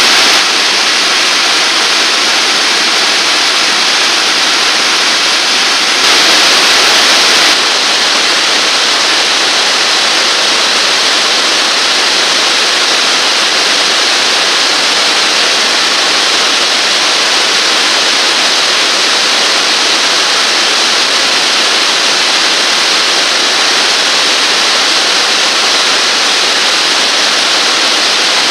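Steady, loud rush of water pouring over a river dam, an even noise with no bird calls standing out. It grows a little louder for about a second and a half about six seconds in.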